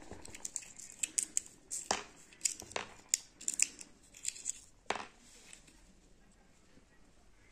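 Irregular light clicks and ticks of small steel screws knocking against a brass coin and the paper under them, stopping after about five seconds.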